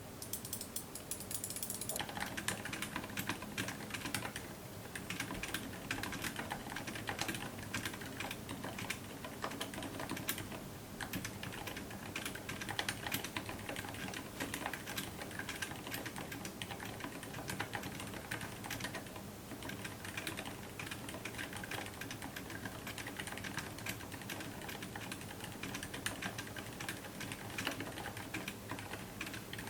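Fast typing on a silent mechanical keyboard: a dense, uneven patter of soft, damped key presses with no ping. The recording is boosted so far that the room's steady background hum is audible under the keystrokes.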